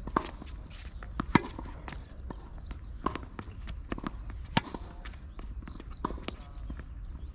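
Tennis ball being struck by rackets and bouncing on the court during a rally: a string of sharp pops, the loudest about a second and a half in and again about four and a half seconds in.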